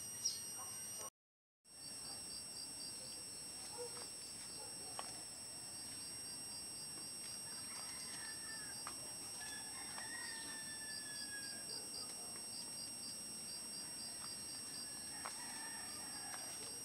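Faint rural daytime ambience: a steady high-pitched insect drone with runs of rapid chirping, a rooster crowing faintly about ten seconds in, and light footsteps. The sound cuts out completely for about half a second a second in.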